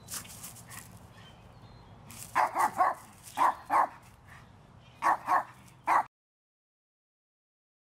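Dog barking: about eight short barks in three quick groups.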